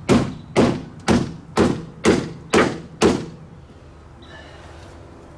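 Seven heavy thuds in quick, even succession, about two a second, each dying away quickly, then they stop about three seconds in.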